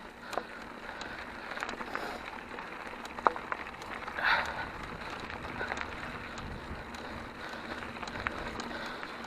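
Mountain bike rolling over a loose dirt track: tyres crackling on the gravel with scattered clicks and rattles from the bike, a little louder about four seconds in.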